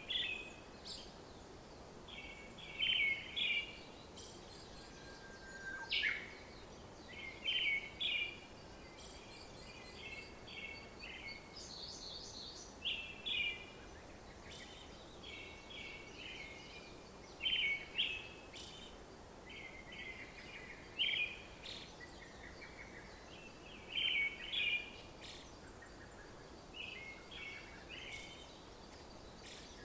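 Birds chirping and singing in short phrases repeated every second or few, over a faint steady background hiss.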